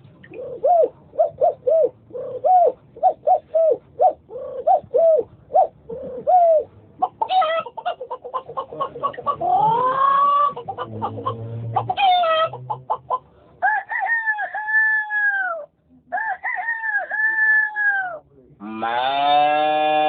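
A man imitating farm birds with his voice: a run of short hen-like clucks, about two a second, then a rising rooster-like crow about ten seconds in, followed by longer drawn-out calls and a loud full call near the end.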